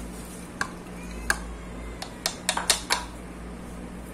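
Several short, sharp clicks and taps: a single one, another about a second later, then four in quick succession. A steady low motor hum runs underneath.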